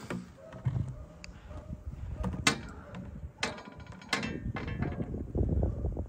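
Blizzard wind buffeting the microphone in a low rumble that grows stronger in the second half, with three sharp knocks about halfway through.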